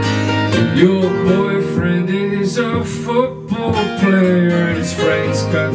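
Acoustic band playing without drums: two acoustic guitars strumming under a man's singing voice, with a brief dip in the music a little past three seconds in.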